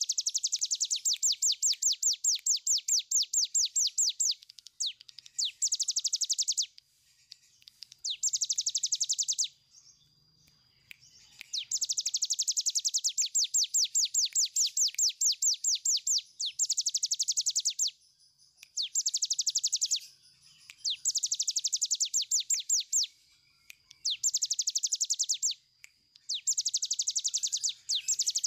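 A caged cigun (brown prinia) singing its long 'ngebren' song: rapid rattling trills of high, sharp notes, about ten a second, in bouts of one to four seconds with short pauses between them.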